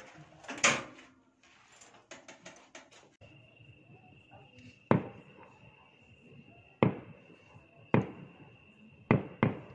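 Distant fireworks going off at night: five sharp bangs in the second half, each with a short echo, over a steady high insect trill. A few clicks and knocks come in the first three seconds.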